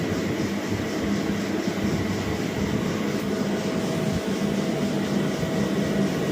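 CNC machine working plastic: a steady mechanical running noise with a faint high whine, and a lower steady tone that joins about halfway through.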